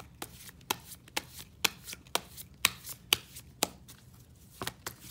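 A deck of tarot cards being shuffled by hand, with sharp card slaps about twice a second and a short pause near the end.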